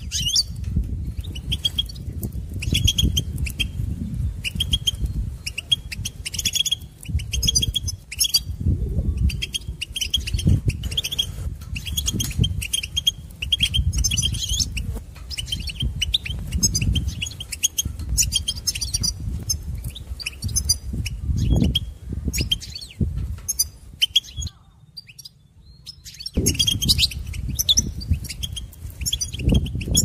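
European goldfinch twittering: quick runs of short, high chirps, over a loud, uneven low rumble. Both break off for about two seconds near the end.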